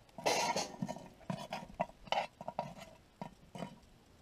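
Metal tongs clinking and scraping as charcoal briquettes are set on a Dutch oven's metal lid: a brief scrape near the start, then scattered light clicks and taps.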